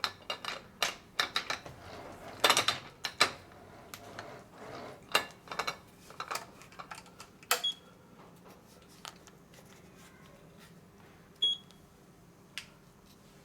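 Small tools and workpieces being handled at a workbench: a quick, irregular run of clicks and knocks that thins out after about eight seconds, with a couple of short ringing clinks.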